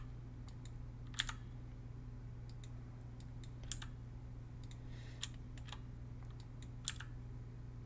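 Scattered computer keyboard and mouse clicks, irregular and a second or more apart, a few of them sharper, over a steady low hum.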